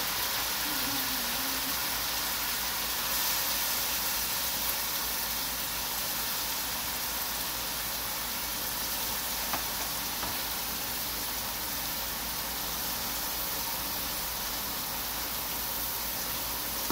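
Sliced onions frying in hot oil in a pot, a steady sizzling hiss.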